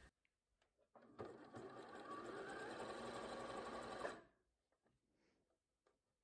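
Bernina B 38 sewing machine running a zigzag stitch through thick knitted wool and elastic: one steady run that starts about a second in and stops about four seconds in.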